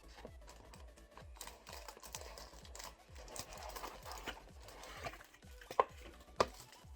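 A cardboard keyboard box being opened and handled: rustling, scraping and light clicks, with two sharp knocks near the end. Background music with a steady low beat runs underneath.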